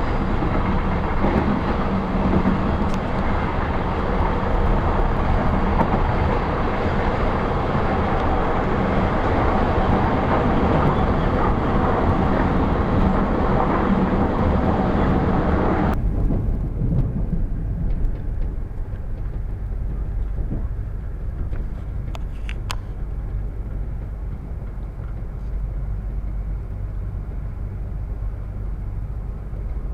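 Suburban train running noise: a loud rumble and hiss that cuts off abruptly about halfway through and gives way to a quieter, low rumble with a couple of brief sharp ticks.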